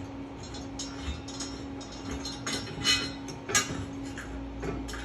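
Irregular metallic clicks and clinks as a wrench works the 9/16-inch leg bolts off a pinball machine's steel legs. The loudest click comes about three and a half seconds in.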